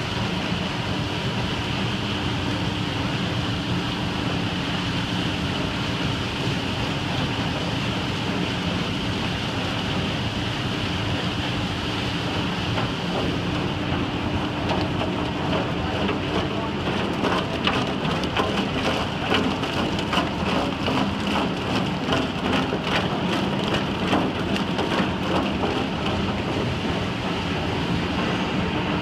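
Bait-fish processing plant machinery running with a steady hum under a rain-like hiss of water sprays. About halfway through, a rapid irregular clatter joins in as menhaden tumble down a wet chute, and it eases off near the end.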